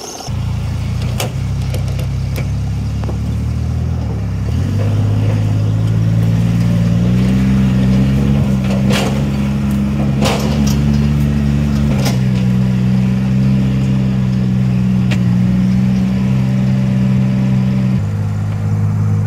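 Rebuilt piston water pump running steadily, a low machine hum with a few knocks in the middle, still priming before any water comes up.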